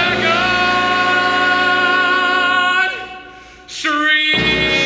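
Stage musical ensemble and orchestra holding a long final sung note, which fades out about three seconds in. A short chord follows, then different music begins near the end.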